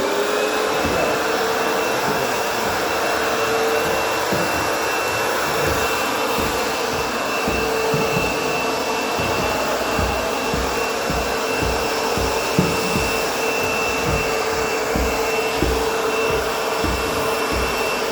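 Vacuum cleaner running steadily with a constant high whine over its rushing airflow, plus irregular low thumps from about five seconds in.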